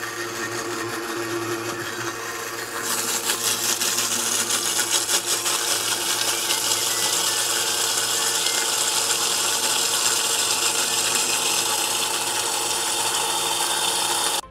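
Vitamix blender running at a low speed setting, blending a lemon vinaigrette as olive oil is poured in to emulsify it. It is a steady whirr that gets louder and brighter about three seconds in, then cuts off suddenly at the end.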